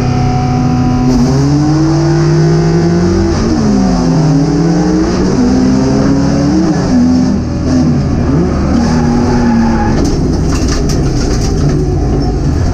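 Race car engine heard from inside the stripped cabin, held at steady revs while stationary, then pulling away about a second in and revving up and down as it climbs and drops through the gears and corners. A flurry of sharp ticks and knocks against the car comes near the end.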